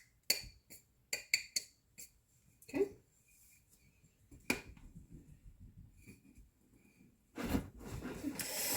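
Scattered light clicks and knocks of a measuring cup tapping against a sugar container and bowl as brown sugar is scooped and pressed down, followed by a rustle near the end.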